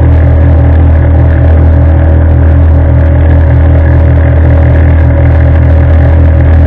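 Small motorboat's engine running steadily under way, a loud low hum holding one pitch.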